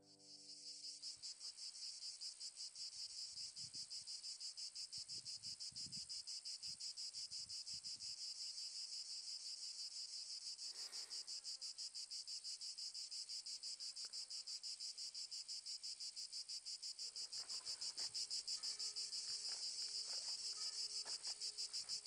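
A steady, high-pitched chorus of insects chirring in a fast, even pulse, with a few faint knocks in the last few seconds.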